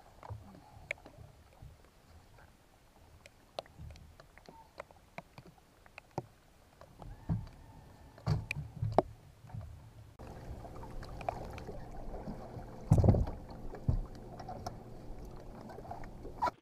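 Scattered knocks and clicks from gear and feet on a bass boat's deck as a hooked bass is played and lifted aboard. About ten seconds in, a steady low mechanical hum comes in, with a heavy thump a few seconds later.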